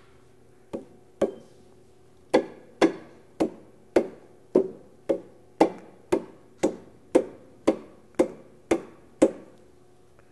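Hammer tapping the metal back cover of a rotary vane vacuum pump around its bearing, driving the cover into position on the housing. Two light taps are followed by a steady run of about fourteen blows, roughly two a second, each with a short metallic ring.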